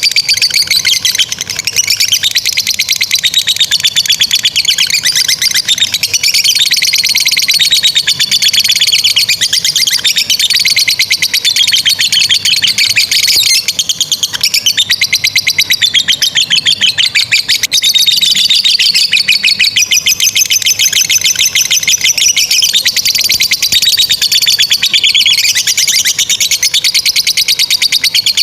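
Lovebirds chattering in a long, nearly unbroken 'ngekek' trill: very rapid high-pitched pulses whose pitch rises and falls in swells of a second or two, with brief dips and no real pause.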